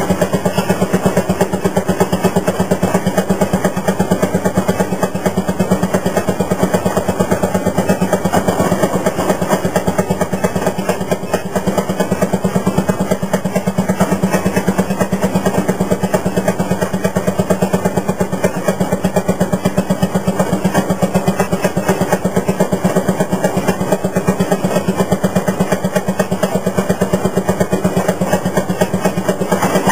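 Fairmont M-19 railroad motorcar's single-cylinder two-stroke 5 hp engine running steadily as the car rolls along the track, a fast, even putt-putt of firing strokes.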